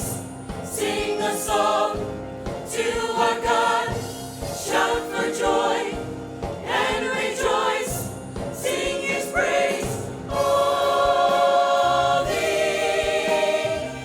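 Live worship music: several voices singing a gospel song together over a band of drums, bass, guitar, piano and synth. From about ten seconds in the voices hold long sustained notes.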